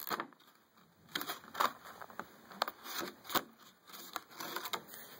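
Mechanical pencil packaging being handled and opened by hand: an irregular string of crinkles, rustles and sharp clicks.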